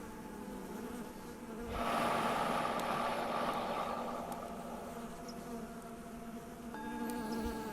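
Bees buzzing in a lavender field, with a louder buzz about two seconds in as one passes close. A Tibetan singing bowl rings in steady tones and sounds again near the end, pacing the breathing.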